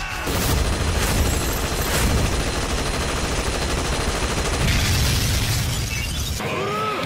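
Anime fight sound effects: a dense, noisy barrage of blasts and impacts with a few sharper hits, cutting off suddenly about six seconds in.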